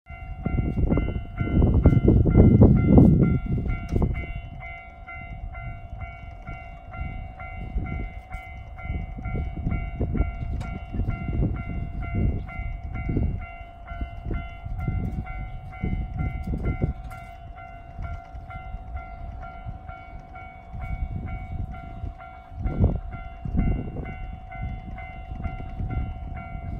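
Japanese level-crossing electronic warning bell ringing steadily in its standard tone, while a train rumbles across, loudest a few seconds in and then fading to lighter repeated knocks.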